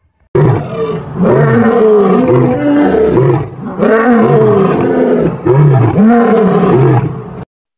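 Male lion roaring: a run of loud, deep roars, each one rising and falling in pitch. It starts a moment in and cuts off suddenly shortly before the end.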